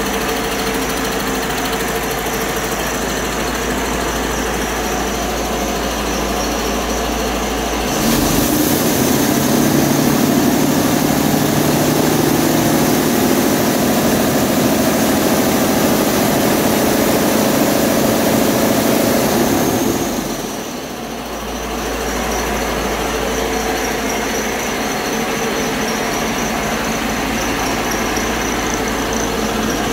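Detroit Diesel DD15 inline-six truck diesel running steadily at idle; about eight seconds in it rises to a higher, louder speed and holds there for some twelve seconds, then drops back and settles at idle again.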